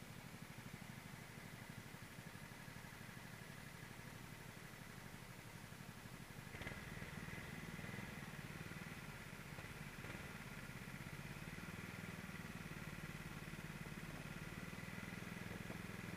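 Racing kart engine running steadily, with other karts' engines close by; the engine note gets louder about six and a half seconds in.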